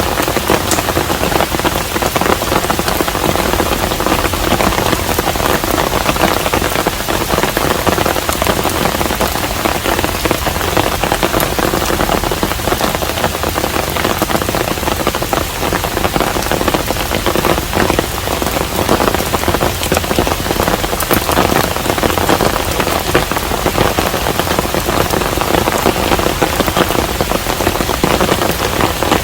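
Steady rain falling on a traditional Korean hanok house, with many close drop impacts ticking over an even hiss.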